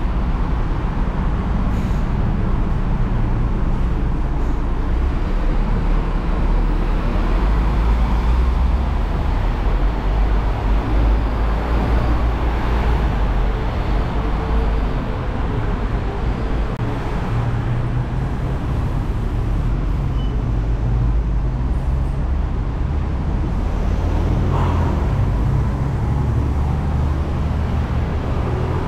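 Steady city road traffic noise with a heavy low rumble, and a vehicle passing about halfway through.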